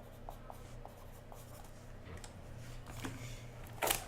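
Faint scratching and rustling of hands at a desk, with a few small clicks and one sharper click or tap near the end.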